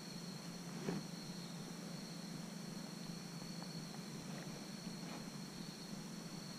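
Night insect chorus, a steady high trill, over a low steady hum, with a faint knock about a second in.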